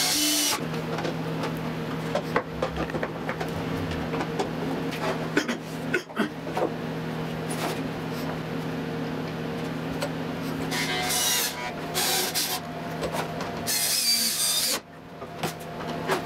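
Cordless drill driving screws into plywood and MDF parts in short bursts: one ending just after the start, then several more from about eleven to fifteen seconds in. Between them, clicks and rubbing of handled parts and tools over a steady low hum.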